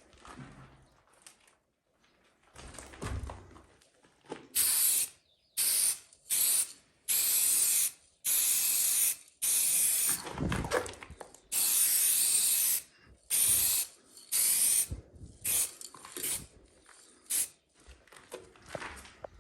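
Aerosol spray paint can spraying in a string of short hissing bursts, some brief and some about a second long, with quieter handling noises between them.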